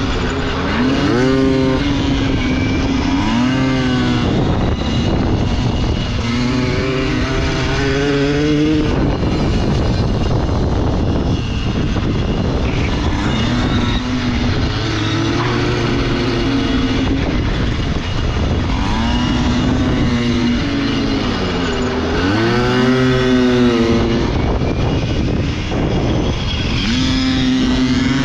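Pit bike engine revving hard as it accelerates down the straights, its pitch climbing then falling away into the corners, over and over, with wind rushing over the microphone.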